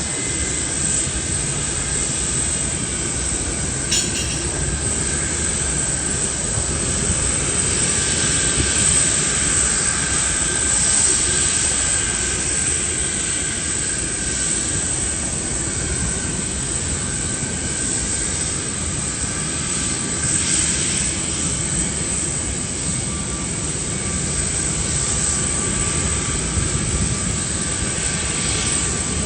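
Jet airliner engines running steadily, a continuous rushing noise with a faint high whine that swells and eases gently over the half minute.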